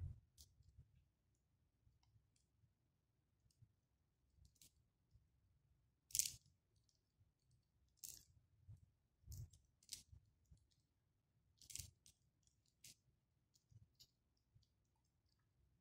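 Plastic beads clicking and rattling against each other as a beaded key holder is handled and knotted: scattered short clicks, a dozen or so, over near silence.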